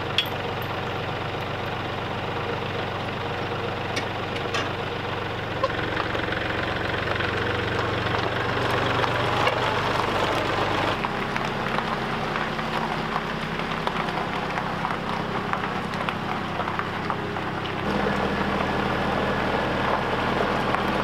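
Truck engine running steadily while towing a loaded log trailer, its note shifting to a new steady pitch about six, eleven and eighteen seconds in.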